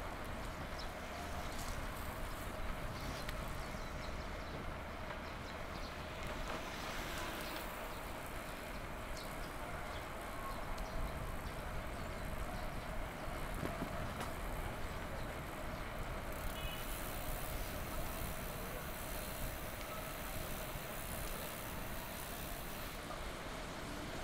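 Steady city street traffic and road noise, heard from a moving bicycle, with no single sound standing out. The hiss grows a little brighter about two-thirds of the way through.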